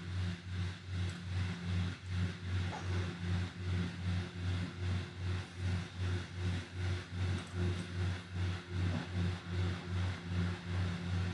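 A low mechanical hum that pulses evenly, about three times a second.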